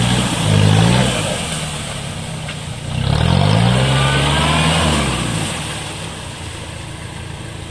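Lifted Toyota Land Cruiser 70 on mud tyres revving hard in deep mud. The engine note rises twice, near the start and again about three seconds in, then falls away, over the churn of mud and water under the wheels.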